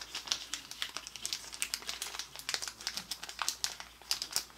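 A clear plastic bag crinkling in a run of quick small crackles as it is worked out of a small cardboard box by hand.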